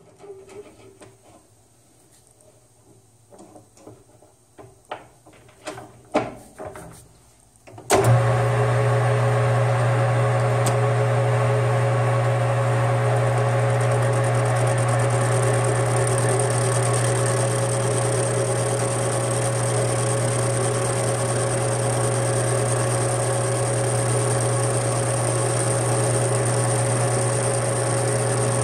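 Metal lathe stopped, with a few clicks and knocks from handling the machine. About eight seconds in the lathe motor starts suddenly and runs with a steady hum while the spindle turns down a welded steel fitting with a high-speed steel tool.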